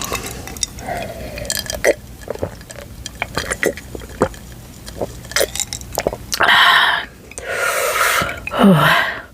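A person burping loudly a few times in the last three seconds, belches brought on by a fizzy drink; the last one drops in pitch as it ends. Before them come small clicks and taps.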